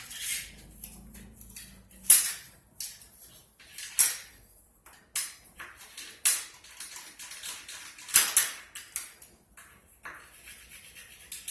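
Scattered sharp clicks and knocks of hard objects being handled: porcelain tile and hand tools being set down and shifted while a tile is measured and marked, with the loudest knocks about two, four, six and eight seconds in.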